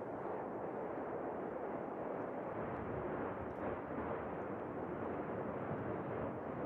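Steady, even rumble of the La Palma volcanic eruption, with no separate blasts standing out.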